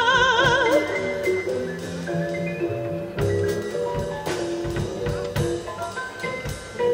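Live band music: a woman's held sung note with vibrato ends about a second in, and the keyboard and cello carry on with an instrumental passage of short, separate notes and a few percussive hits.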